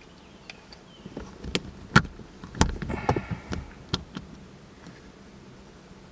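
Handling noise from a camera and its mount: scattered clicks and knocks, with a dull thump about two and a half seconds in, as a hand grips and adjusts the camera.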